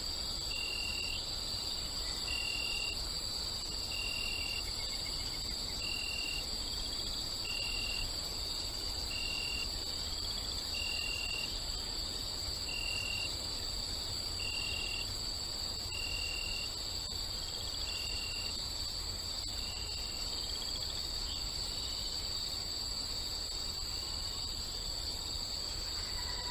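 Crickets chirping in a steady high trill, over a low steady rumble. A second, lower call repeats as short chirps about every one and a half seconds and stops about two-thirds of the way through.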